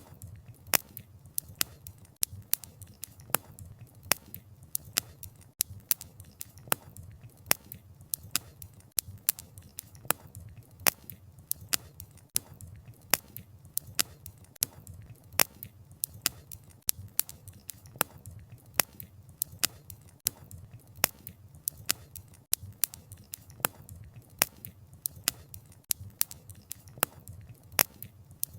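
Wood fire crackling: sharp, irregular pops of burning firewood, several a second, over a low steady rumble.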